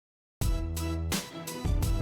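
Digital silence, then about half a second in, background music starts with a regular beat and sustained notes.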